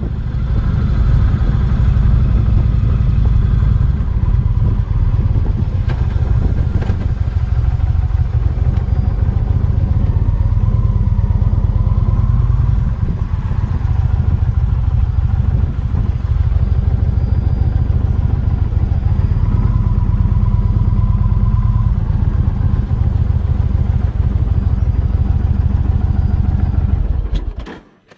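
Motorcycle engine running steadily while riding, a dense low rumble that cuts off shortly before the end.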